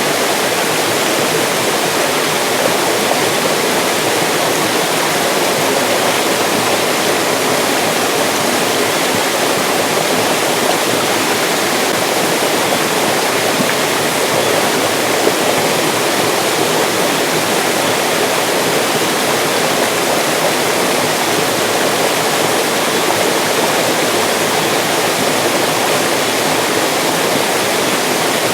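Mountain stream rushing steadily over rocks, an even, unbroken splashing flow.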